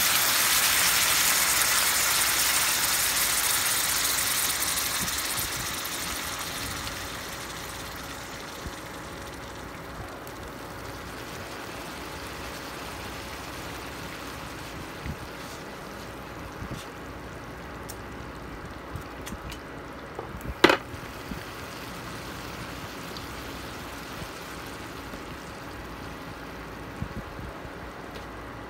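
Chicken pieces and onions sizzling loudly in a hot pan as a little water goes in, the hiss dying down over about seven seconds into a quieter steady simmer. A single sharp click comes about two-thirds of the way through.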